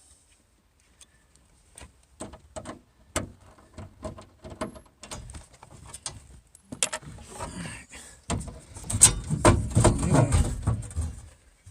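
Hands and tools working inside a Ford E-350 van's rear door to free the broken latch: scattered clicks and knocks, then a louder stretch of clattering and rattling against the door's metal about two-thirds of the way in.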